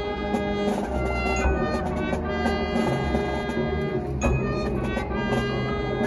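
Marching band playing, with brass holding sustained chords that change every second or so.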